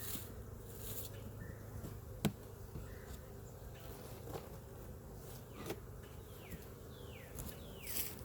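Honeybees buzzing around an open hive, a steady hum. A single sharp click comes about two seconds in, and a few short falling chirps come near the end.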